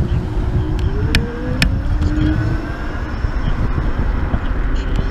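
Riding noise from a Kaabo Mantis Pro electric scooter under way: steady wind buffeting on the microphone and road rumble, with a faint whine that rises in pitch about a second in and a couple of sharp ticks.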